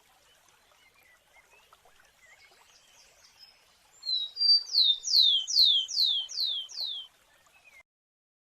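A sparrow singing: a couple of short high notes, then a quick, even series of about six loud whistles, each sliding down in pitch.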